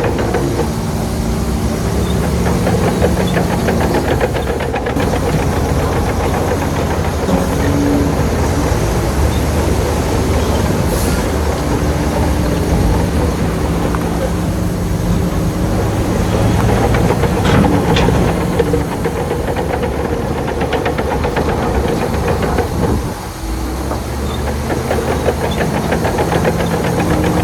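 Heavy diesel engine of earthmoving machinery running, a rapid steady chugging whose pitch shifts up and down a few times, with a brief drop in level near the end.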